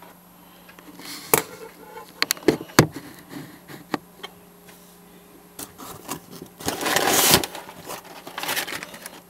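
Packing material being pulled out of a shipping box: scattered crinkles and crackles, then a longer, louder rustle about seven seconds in and a shorter one near the end.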